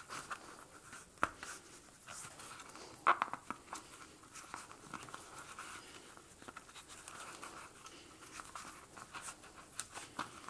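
Faint handling sounds of crocheting thick cord through the punched holes of a bag base with a metal crochet hook: a soft rustle of cord and hands, with a few sharp clicks, the loudest about a second in and again about three seconds in.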